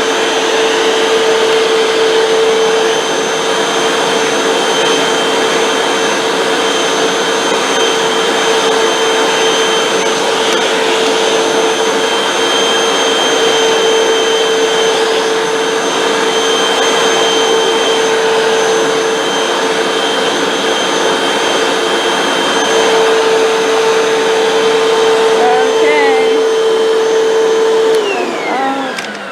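Hoover WindTunnel 2 bagless upright vacuum cleaner running steadily, a constant hum over the rush of air. Near the end it is switched off and the motor winds down, falling in pitch.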